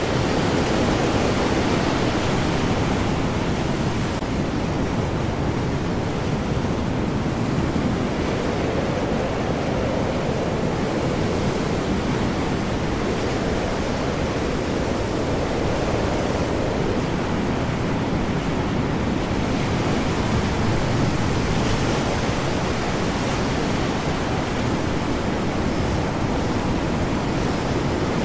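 Stormy ocean: heavy waves surging under high wind, a dense steady rushing of water and wind that swells and eases gently over several seconds.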